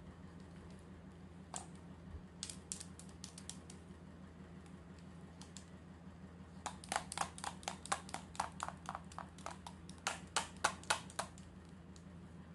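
Small plastic clicks and taps from a toy plastic stethoscope being handled, a few early on and then a quick run of clicks from about seven to eleven seconds in, over a low steady hum.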